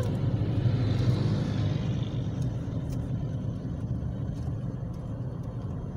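Steady rumble of a car driving along a road, engine and tyre noise heard from inside the cabin, easing off a little toward the end.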